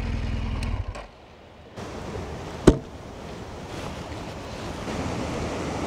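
BMW motorcycle engine idling with a steady low hum, switched off about a second in. After a short hush comes a steady rushing noise, with one sharp click near the middle.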